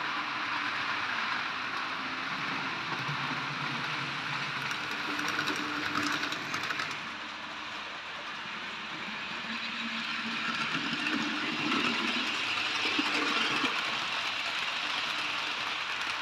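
00 gauge model trains running on a layout, a steady mechanical running noise with no pauses.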